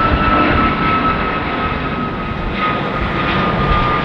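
Airbus A380's jet engines running at taxi power: a steady high whine that sinks slightly in pitch, over a low rumble.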